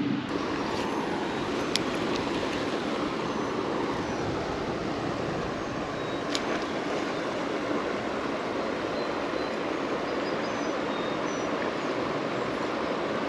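Steady rushing of flowing creek water, with two brief faint clicks.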